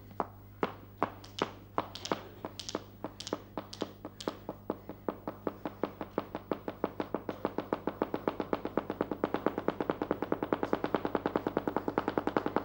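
Flamenco zapateado: a dancer's heeled shoes striking a wooden stage, starting at about two or three beats a second and speeding up steadily into a fast, even roll that grows louder.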